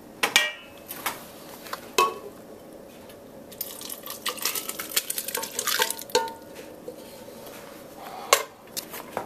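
Cookware clinking and scraping as cooked spinach and cream is poured and scraped from a pot into a glass blender jar. A few sharp ringing clinks come first, then a run of rapid scraping and tapping about four to six seconds in, and a last knock near the end.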